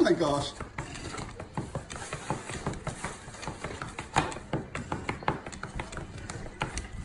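Irregular small clicks and crackles of packaging being handled by hand. Right at the start there is a short vocal sound falling in pitch, the loudest moment.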